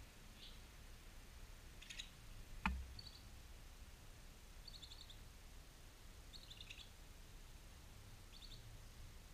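Barn swallow giving faint, short twittering chirps, about six brief bursts spread through, with a single sharp knock a little under three seconds in.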